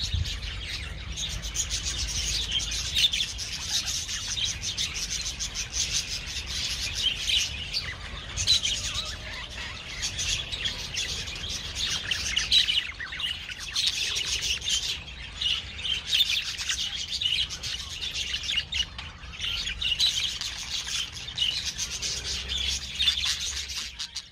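Lovebird chattering: a continuous, rapid run of high chirps and twitters, fading out near the end.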